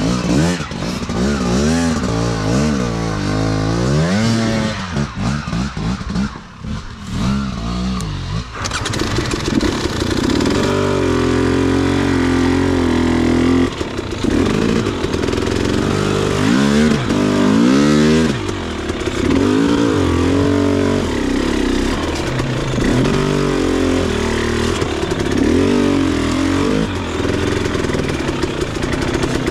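KTM 300 XC two-stroke single-cylinder dirt bike engine revving up and down in short blips, then pulling harder with denser noise from about eight seconds in, its revs rising and falling continually as it is ridden over the trail.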